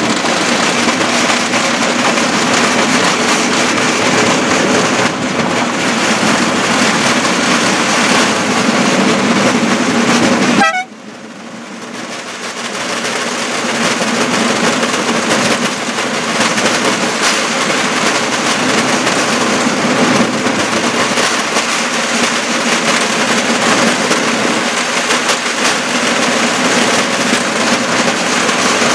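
Homemade rail draisine running along the track: a loud, steady mechanical drone of the moving vehicle on the rails. About eleven seconds in the sound drops out abruptly and fades back up over a few seconds.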